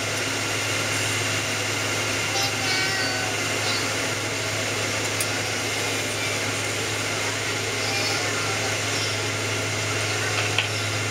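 Steady airliner cabin noise inside a taxiing Boeing 777-200ER: a low hum from the engines and air conditioning, with faint passenger voices now and then.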